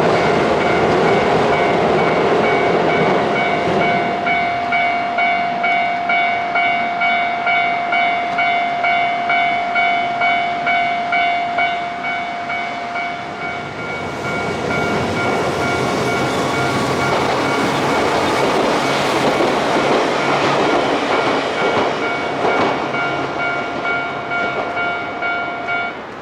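Japanese level-crossing warning bell ringing "kan-kan" steadily, about two strokes a second. Partway through, a train rumbles and clatters past over the rails. The bell stops near the end.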